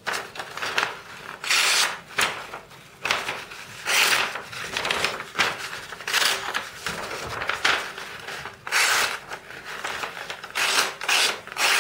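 Leatherman Juice CS4 knife blade slicing a sheet of paper in repeated rasping strokes, roughly one a second. The edge has been dulled by cuts in felt and cuts the paper only reluctantly.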